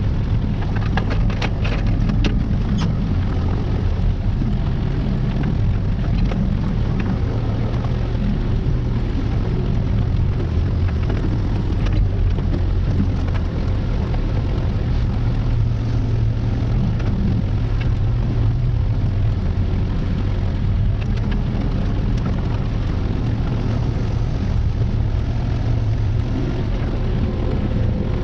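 Diesel engine of a compact excavator or skid steer running steadily under work, with a few light clanks in the first few seconds.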